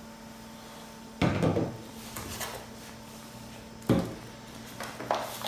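Two dull knocks, about a second in and again near four seconds, with a few light clicks after, as items are handled in and out of a cardboard shipping box, over a faint steady hum.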